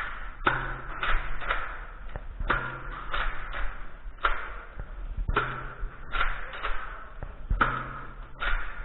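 Nerf blasters being primed and fired, with foam darts striking: a series of about nine sharp plastic clacks, several of them followed by a brief low hum.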